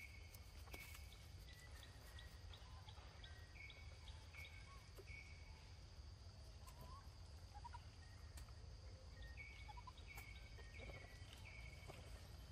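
Faint outdoor ambience: a steady high-pitched insect drone, with runs of short repeated chirps a few seconds apart and a low rumble underneath.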